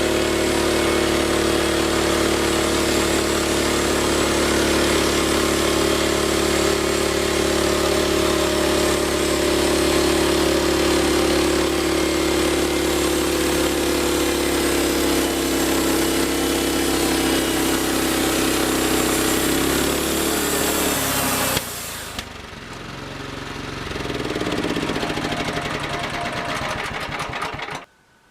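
Homemade band sawmill running steadily under power, then cut off about three quarters of the way through, its sound dropping suddenly and then winding down with falling pitch before stopping abruptly.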